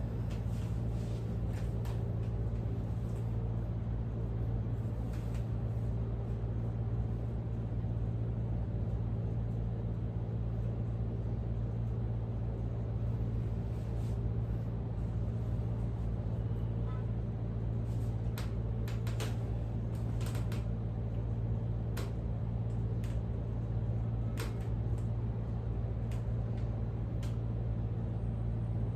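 Steady low machine hum, with a few brief sharp clicks scattered through it, most of them in the second half.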